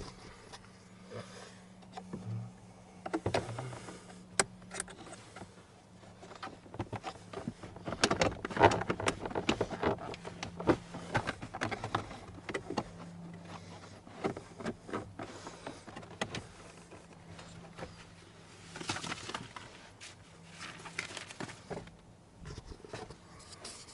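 Plastic dashboard trim being handled: irregular clicks, knocks and scrapes as a car's glove box is worked out of the dash and its light connectors are unplugged, busiest in the middle of the stretch. A faint steady low hum runs underneath.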